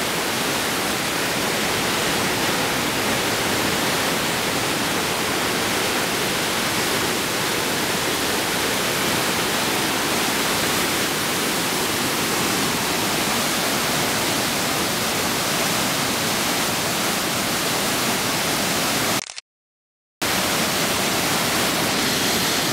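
Maligne River whitewater rushing through the canyon: a steady, even rush of water that cuts out completely for about a second near the end.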